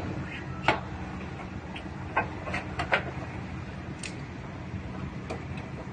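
A handful of sharp metallic clicks and knocks as a steel bumper reinforcement bar and its brackets are handled and test-fitted against the car's front frame rail, over a steady low hum.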